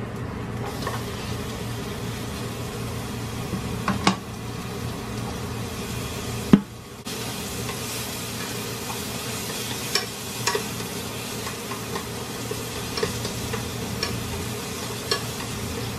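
Sliced onion sizzling as it fries in a nonstick frying pan, with wooden chopsticks clicking and tapping against the pan as they stir it. A sharp knock about six and a half seconds in is the loudest moment.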